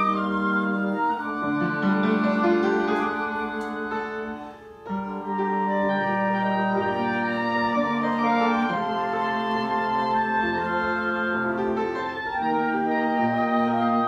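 Live chamber music from upright piano and flute with other wind instruments, playing slow held chords that change every second or two. A short break between phrases about five seconds in.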